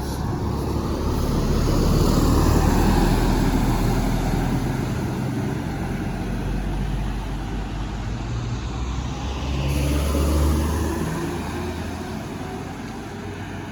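Heavy road vehicles passing close by, the first of them an intercity bus: engine and tyre noise swells to a peak about two seconds in, eases off, and swells again as a second vehicle passes about ten seconds in.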